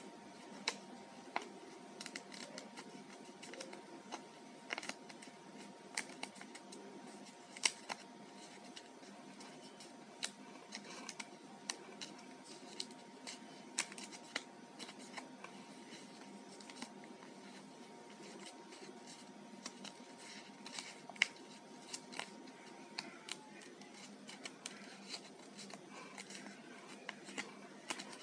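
Paper modules being folded and creased by hand: irregular small crackles and snaps of stiff paper, scattered through the whole stretch. A faint steady hum sits underneath and stops about 23 seconds in.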